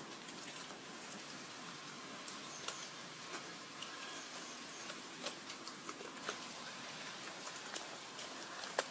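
Wet cement being worked by hand and with a bamboo pole: a faint steady hiss with scattered soft wet clicks and taps, the sharpest one near the end.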